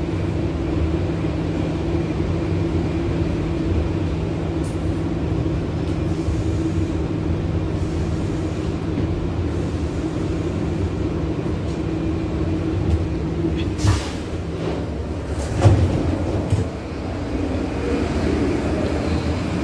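New York subway shuttle train running, heard from inside the car: a steady rumble with a held hum and whine. About two-thirds through the whine stops, and two short sharp noises come as the train comes to a halt.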